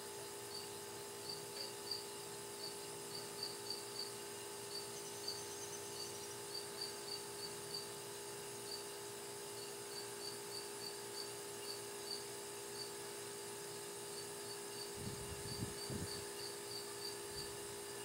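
Hermetic compressor of an old Borg Warner Norge refrigerator running with a faint, steady hum, very quiet. Faint high chirps come and go a few times a second, and a brief low rumble comes about fifteen seconds in.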